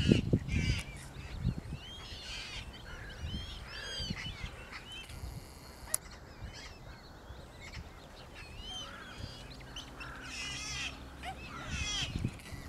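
Mute swan cygnets peeping: many short, high, arching calls that overlap, bunched in clusters near the start, around three to four seconds in, and again near the end. A low rumble fades out in the first second.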